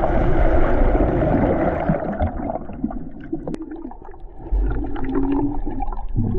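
Muffled underwater sound of a swimming pool as heard by a submerged camera: a churning rush of water at first that fades, then small clicks and air bubbles from a swimmer breathing out.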